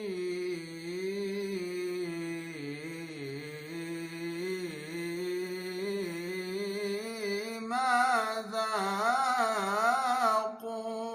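A solo male voice singing a nasheed unaccompanied, holding long drawn-out vowels with wavering melismatic ornaments. About eight seconds in the voice swells louder into a run of quick ornaments.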